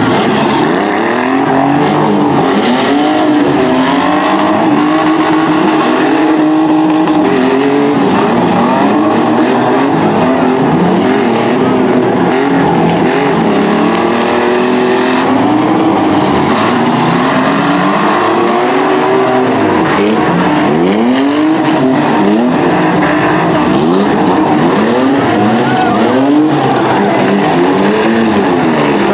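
Several demolition derby mini trucks and small SUVs revving their engines at once, a loud continuous din of overlapping pitches that keep climbing and falling as the drivers accelerate and back off across the arena.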